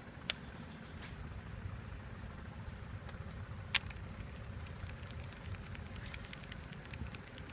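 Outdoor swamp ambience: a steady low rumble, a thin, steady high insect drone, and a few sharp clicks, the loudest a little under four seconds in.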